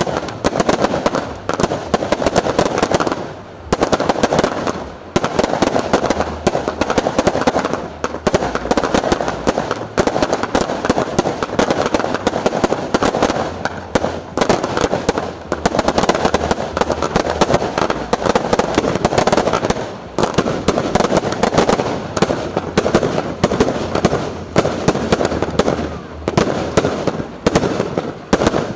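Fireworks finale: a dense, continuous barrage of bangs and crackling, with a few brief lulls of under a second.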